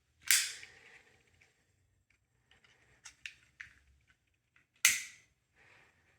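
Lighter being struck: two loud sharp clicks with a short echo, about a second apart from the start and near the end, and a few fainter clicks between them.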